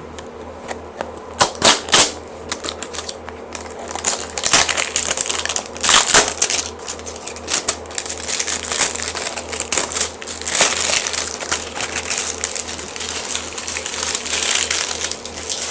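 Packaging being torn open and crumpled by hand: dense crackling and crinkling with sharp rips, loudest about a second and a half to two seconds in and again around six seconds.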